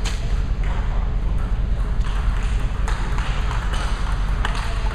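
Table tennis rally: the celluloid ball clicking off the rubber paddles and the table every half second or so, over a steady low hum of the hall.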